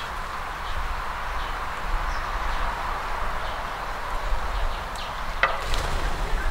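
Faint, scattered chirps of small birds at a woodland water trough, over a steady hiss and low rumble. Near the end there is a sharp snap followed by a brief flurry as the birds fly off.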